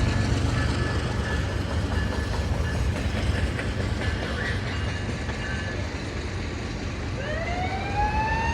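Freight train rolling slowly past with a steady low rumble. About seven seconds in, a rising siren wail starts up: a Loram rail grinder's warning siren telling people to watch out.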